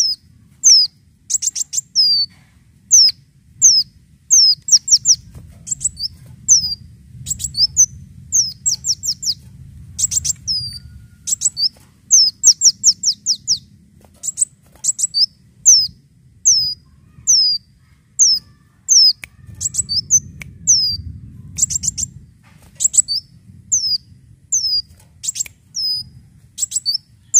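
Kolibri daun (a sunbird) calling: short, high chirps that fall in pitch, alone or in quick runs of three to five, coming about once a second.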